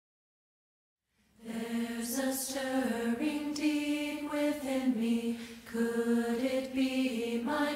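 Dead silence for about a second and a half, then a hymn starts: unaccompanied voices singing in harmony, in long held notes.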